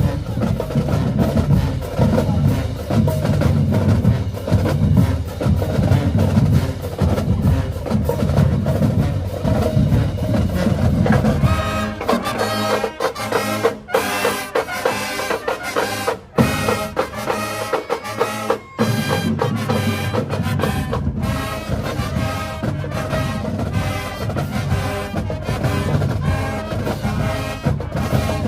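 Marching band playing: the drumline with heavy bass drums drives the first twelve seconds. Then the low drums drop out and the brass section plays on with a few sharp cut-offs, and the fuller drumming comes back in for the last part.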